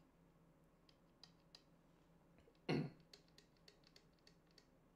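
Faint small clicks of buttons pressed on a handheld LED tube light over quiet room tone, with one short, louder throat noise like a cough about two and a half seconds in.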